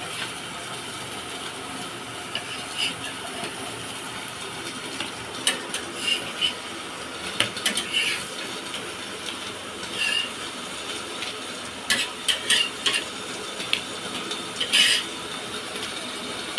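Hot oil sizzling steadily as banana-and-potato fritters fry in a pan. A metal utensil clinks and scrapes against the pan, on and off, from about five seconds in.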